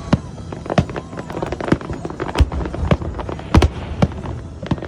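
Fireworks going off: a string of about ten sharp bangs at uneven intervals, two of them close together past the middle.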